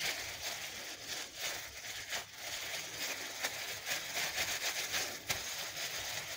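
Clear disposable plastic gloves crinkling and rustling as hands scoop and shape spiced beef mince into kebabs, a soft irregular crackle.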